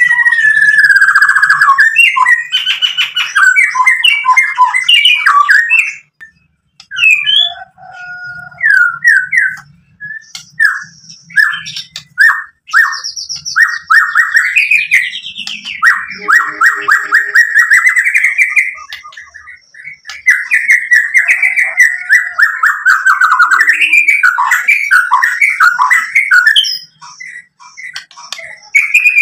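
White-rumped shama singing loudly. A long, varied song of whistled phrases, chattering runs and rapid repeated notes, broken by a few short pauses.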